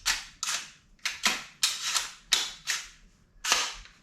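An AR-15-pattern rifle (Aero Precision build) being handled and cleared: about nine sharp metallic clicks and clacks from its action and parts as it is worked by hand.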